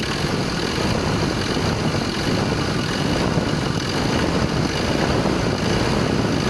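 Ford Ranger 2.2-litre four-cylinder diesel engine running steadily with a knock, the engine fault being shown.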